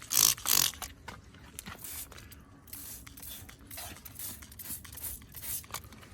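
Spray bottle squirting aluminum cleaner and brightener onto an ATV engine: two quick hissing sprays right at the start, then quieter handling noise with a few faint clicks.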